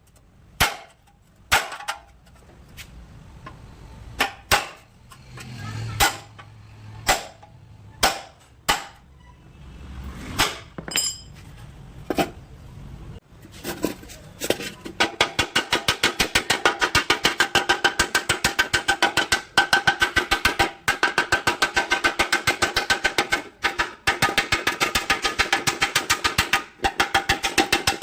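Hammer blows on scooter body panel work, sharp single strikes about once a second, then about halfway in a fast, even run of rapid taps with a ringing tone under them.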